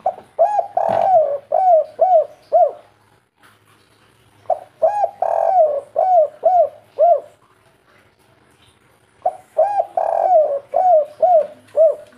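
Spotted dove (tekukur) singing its 'kuk 3' song three times, about every four and a half seconds. Each phrase has a short opening coo and a longer drawn coo, then three short 'kuk' notes.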